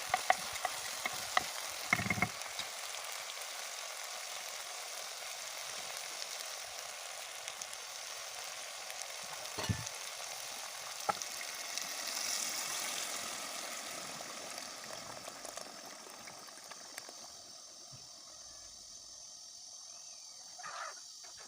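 Food sizzling steadily in a hot pan, with a few sharp clicks and knocks of a utensil against the pan. The sizzle eases off in the last few seconds.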